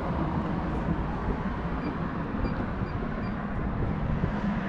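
Steady low vehicle rumble on a fuel-station forecourt, with a few faint short electronic beeps from the diesel pump's card-terminal keypad as its buttons are pressed.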